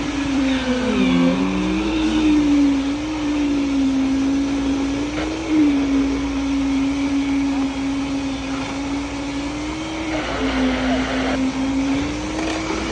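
A machine's motor running steadily under load, a strong hum that dips and rises slightly in pitch a few times, with a clatter of noise over it.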